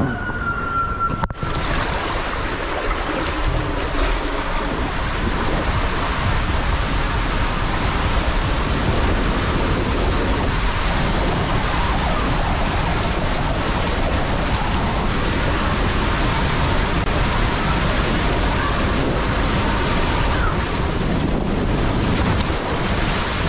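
Rushing water and an inner tube sliding down an enclosed Polin tube waterslide: a loud, steady rush that begins abruptly about a second in.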